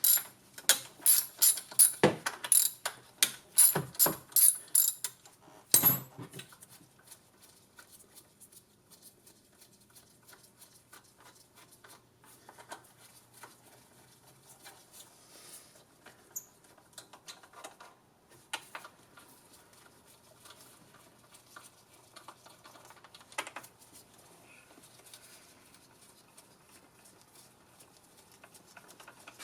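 Hand socket ratchet clicking rapidly as bolts are turned on the engine, for about the first six seconds. After that come only faint, scattered clicks and tool-handling sounds.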